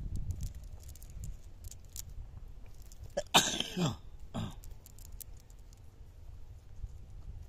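A person coughs: one longer harsh cough about three seconds in, then a shorter one just after. Faint scattered crackles of a cast net being handled run beneath.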